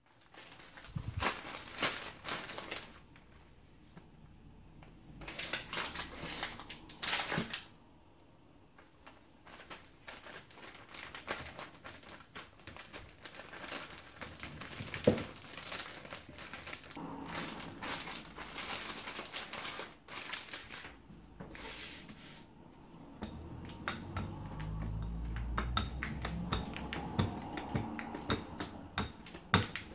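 Clear plastic zip-lock bag crinkling and rustling in intermittent patches as it is handled with butter slices inside. Near the end a wooden rolling pin is rolled over the butter in the bag on the countertop, with a low rumble and small knocks.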